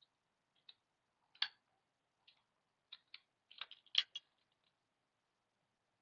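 Small, sharp plastic clicks and taps from a Toyota key fob being handled, scattered at first and bunching into a quick flurry about two thirds of the way in.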